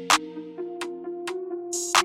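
Electronic background music: sustained synth tones with sharp percussion hits about twice a second and a short noisy swell near the end.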